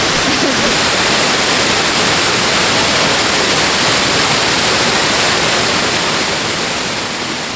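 Waterfall on the Katashina River (Fukiware Falls): a loud, steady roar of rushing water, easing slightly near the end.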